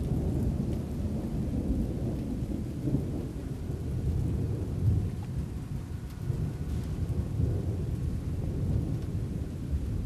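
Thunder from an approaching storm, rumbling low and continuously, swelling slightly about five seconds in.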